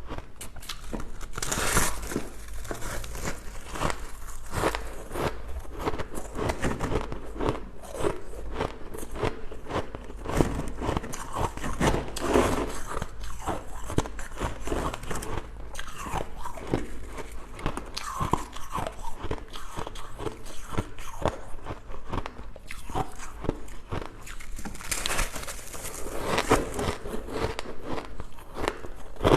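Continuous irregular crunching: a dense run of short crunches and crackles, louder in clusters.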